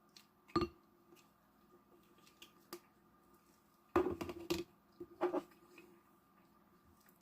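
Tableware being handled: a single knock about half a second in, a quick cluster of clinks and knocks around four seconds in, and another short group just after five seconds, over a faint steady hum.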